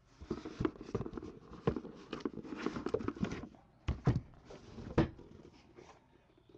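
Handling noise from the camera being picked up and moved: dense rustling and scraping with small clicks, then sharp knocks about four and five seconds in as it is set in place.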